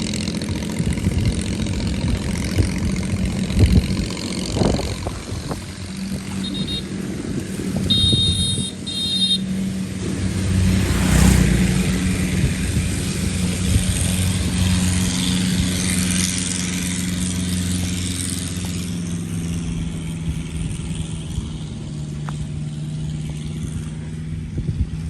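Motor vehicle engine running steadily, with a louder swell as a vehicle passes close about eleven seconds in. A few short high beeps come around eight seconds in.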